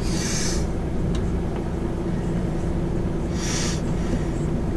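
Steady diesel engine hum inside the cab of a MAN TGX semi-truck driving at low speed. Two short hisses stand out, one at the start and one about three and a half seconds in.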